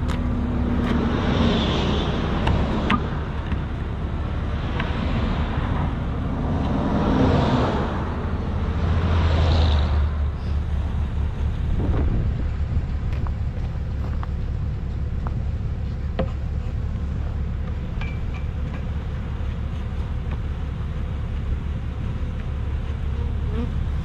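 Highway traffic going by: passing cars swell and fade three times in the first ten seconds over a steady low rumble. Honeybees from a swarm are buzzing around close by.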